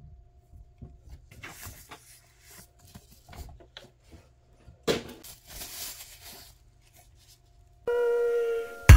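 Soft rustles and light clicks of a small flashlight and its magnetic mount being handled, with one louder knock about five seconds in. Music with steady tones starts near the end.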